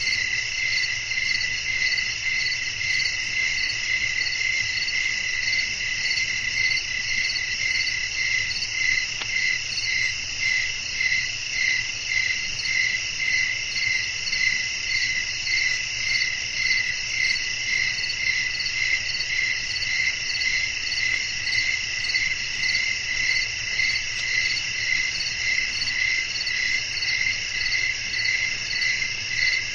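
Night chorus of crickets chirping steadily in layered high-pitched trills that pulse in an even rhythm.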